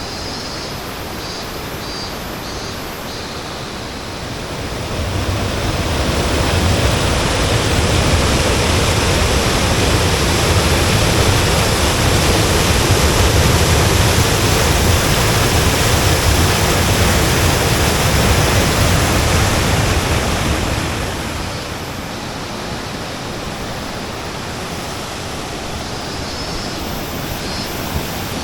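Waterfall rushing steadily. The sound swells about four seconds in, stays louder for roughly sixteen seconds, then falls back to its earlier level.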